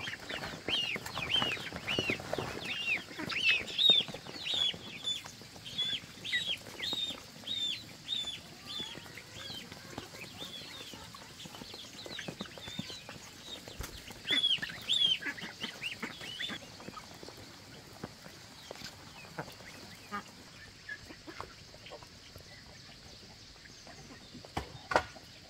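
Chickens calling: a run of short, high calls repeating about twice a second. They thin out after about 17 s, leaving scattered calls and faint clicks.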